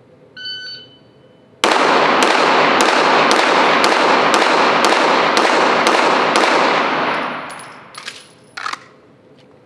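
Shot timer's start beep, then about a second later a string of ten rapid 9mm pistol shots, roughly two a second, with heavy echo from the indoor range, dying away after the last shot. A couple of sharp clicks follow near the end.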